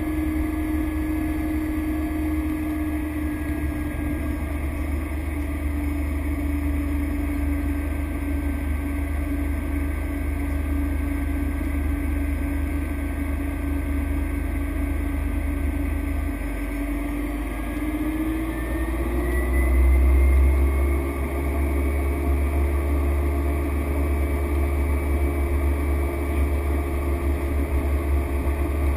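Cessna Grand Caravan's single PT6A turboprop engine running steadily. Its hum rises in pitch about two-thirds of the way through as power is increased, swells briefly, then holds steady at the higher pitch.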